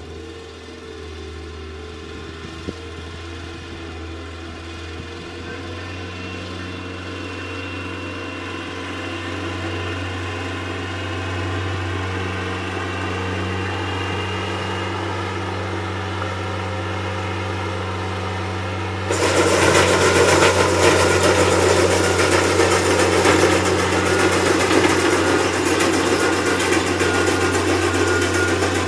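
Skid steer loader's diesel engine running at steady revs, growing louder as the machine comes closer. About two-thirds of the way through, a loud rough noise abruptly joins it as the Rockhound attachment works the ground.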